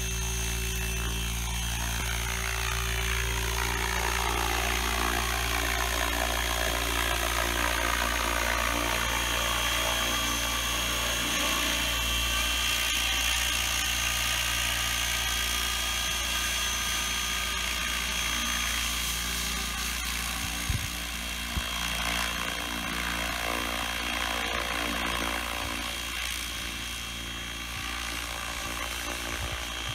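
Small unmanned helicopter's motor and rotor running in flight: a steady high whine over a low drone, the pitch sweeping as it lifts off and climbs away. There are a few sharp knocks after about twenty seconds.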